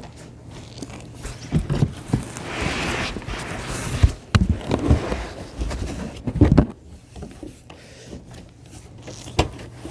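Handling noises while unpacking a computer case: scattered knocks and thumps, a rustling scrape of packaging about two to three seconds in, and sharp clicks near four seconds and again near the end.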